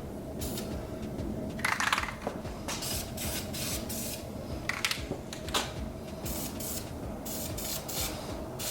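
Aerosol spray can sprayed in about ten short bursts of hiss with pauses between them; the loudest comes about two seconds in.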